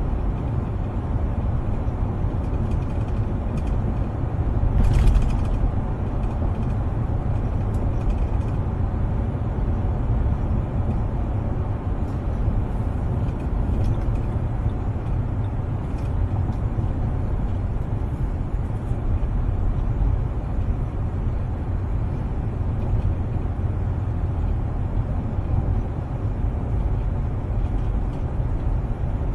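Road and engine noise heard inside a moving SUV's cabin: a steady low rumble, with a brief louder hiss about five seconds in.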